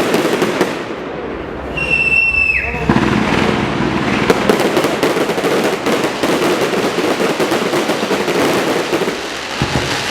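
Fireworks going off: dense, rapid crackling pops with many small bangs. About two seconds in, a high whistle sounds for under a second and drops in pitch as it ends.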